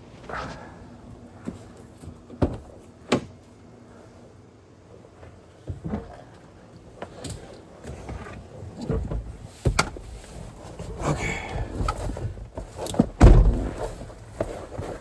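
Handling noises around a pickup truck: several sharp knocks and thunks with rustling between them, the loudest near the end, like the hood or a door being shut and a person climbing in.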